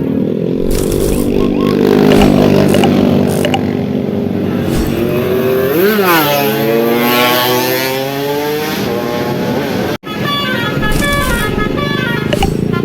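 Tour bus engines running and revving, the pitch rising and falling about halfway through. Near the end a multi-tone telolet bus horn starts playing a stepping tune.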